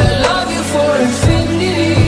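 Background pop music with a steady beat and heavy bass.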